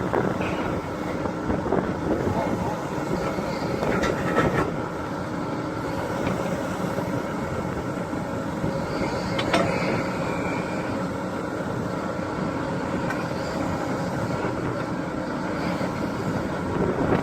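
Excavator engine running steadily under load, with a few short knocks about four and nine seconds in.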